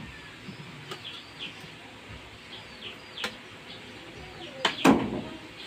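Metal spoon and serving utensil clicking against a metal tray as cooked fish is arranged, with a louder clatter of metal on metal near the end. Small birds chirp repeatedly in the background.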